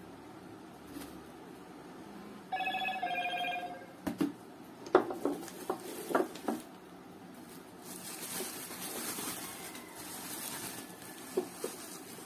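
A short electronic tone in two steps about two and a half seconds in, then a run of sharp clicks and knocks as hard plastic cookware handles are set down, the loudest sounds here, followed by bubble wrap crinkling as it is handled, with two more light clicks near the end.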